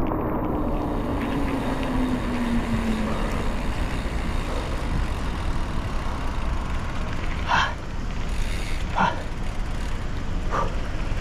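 Steady wind and road rumble from a moving bicycle, with a passing motor vehicle whose engine tone falls in pitch over the first few seconds. From about seven seconds in, a short sound repeats about every second and a half.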